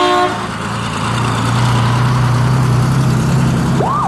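Vintage fire truck in a parade: its horn sounds at the very start and cuts off. Then a low, steady engine drone runs. Near the end a siren starts a fast rising-and-falling wail.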